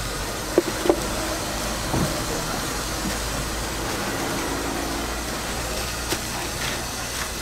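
A few sharp knocks on a wooden chopping board, twice near the start, once at about two seconds and once at about six seconds, as a kitchen knife and pieces of boiled pig's trotter are set down and picked up. Under them runs a steady hissing rumble.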